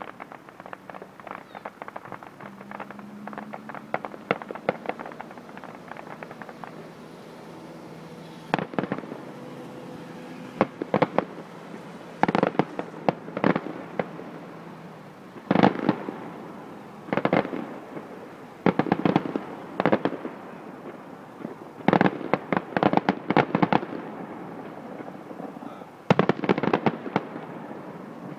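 Fireworks going off: quick runs of sharp crackling bangs, dense and quieter in the first few seconds, then louder clusters of cracks every second or two.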